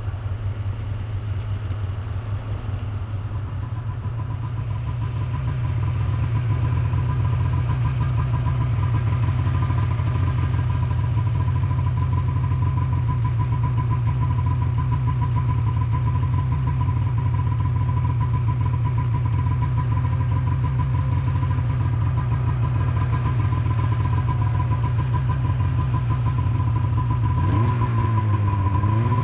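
Snowmobile engine running at a steady cruising speed, getting louder about five seconds in. Near the end the revs dip and rise again briefly.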